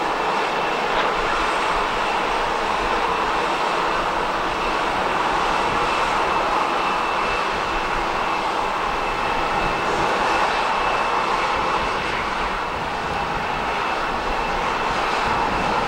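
Airbus A330-223 airliner's Pratt & Whitney PW4000 turbofans heard on approach: a steady jet rush with a thin high fan whine held throughout.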